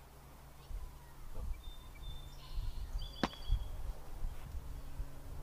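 A single sharp smack about three seconds in as a fist lands on a man's chest, over a low rumble of wind on the microphone.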